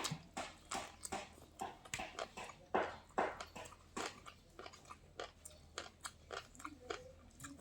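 Bitter gourd being bitten and chewed: irregular crisp crunches and smacks, several a second.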